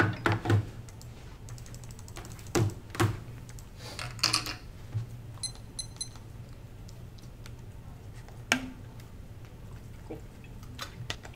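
Laptop being set down on a small stand and then typed on: scattered knocks and key clicks, with a few louder thumps in the first half, over a steady low hum.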